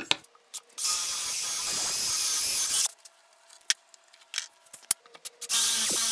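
Hand drill with a Forstner bit boring holes into wood: two bursts of cutting hiss about two seconds each, the first starting about a second in and the second near the end. A few light clicks fall between them.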